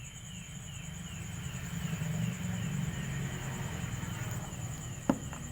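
Crickets chirping steadily over a low rumble that swells around the middle, with one sharp click near the end.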